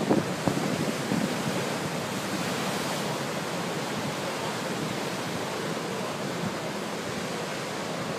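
Ocean surf breaking and washing over rocks: a steady rush of white water, with a few low buffets of wind on the microphone right at the start.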